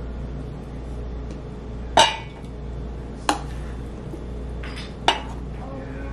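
Metal spoon clinking against a metal mixing bowl three times, a second or two apart, the first the loudest, while scooping a soft bread-and-cheese mixture into a bundt pan.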